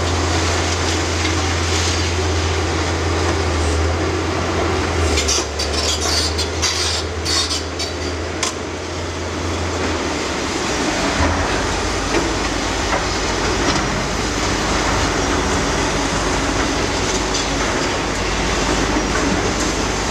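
Heavy diesel excavators running at a demolition site, with a steady low engine drone. Concrete rubble clatters and cracks in a cluster of sharp hits between about five and nine seconds in, and the engine drone shifts lower about halfway through.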